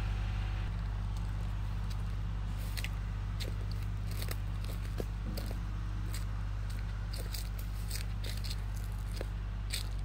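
Kubota tractor engine running steadily, with scattered crackles and snaps of twigs and brush. The engine sound falls away near the end.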